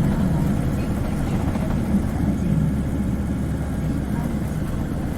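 Diesel engine of an Isuzu Cubic KC-LV380N city bus running steadily, heard from inside the passenger cabin as a low, even drone.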